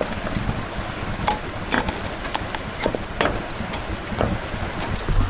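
A small stainless steel cup knocking and clinking against an aluminium pan as filled hotteok are pressed flat: a string of short sharp clicks every half second or so over a steady low background noise.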